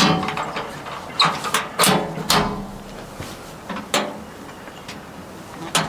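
Band sawmill's blade-housing covers being swung shut and latched: about six sharp knocks at irregular intervals, each ringing briefly.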